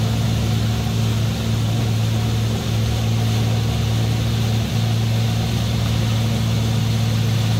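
Sailboat's auxiliary engine running steadily at constant RPM, a low even hum with no change in speed.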